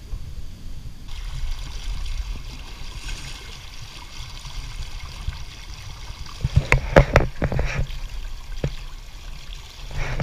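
Water rushing and slapping against the hull of a small sailing canoe under way on choppy water, with wind rumbling on the microphone. A run of loud splashes comes a little past the middle.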